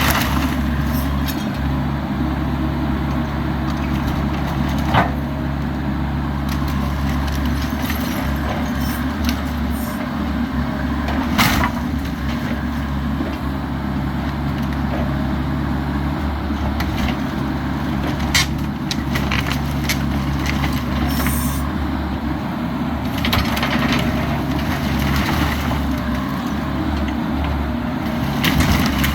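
Bobcat E85 excavator's diesel engine running steadily under load, with a few sharp cracks of wood and debris being crushed at intervals.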